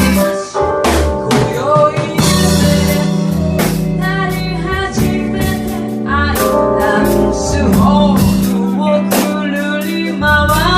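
Live band music: a drum kit keeping a steady beat under sustained bass notes, with a bending melodic lead line above.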